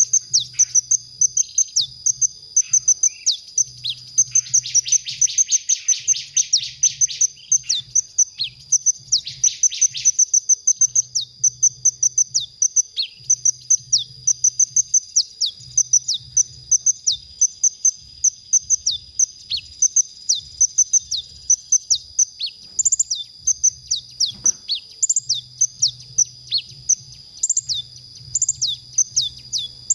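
Sunbird singing: a long run of sharp, high-pitched chirps, three or four a second, broken a few seconds in by a fast buzzy trill and another near ten seconds, over a steady high-pitched tone.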